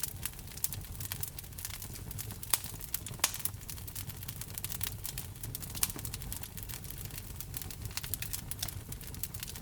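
Wood fire crackling and popping steadily over a low rumble, with a couple of louder pops a few seconds in.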